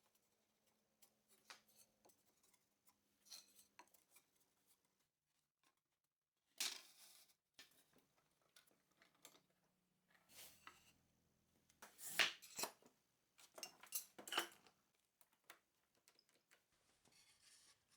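Faint clicks and light taps of small objects being handled and set down, with a few louder knocks spread through, the loudest a short cluster about two-thirds of the way in.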